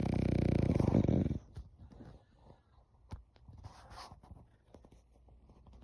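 French bulldog snoring: one loud, rattling snore in the first second and a half, then quieter breathing with small clicks before the next snore.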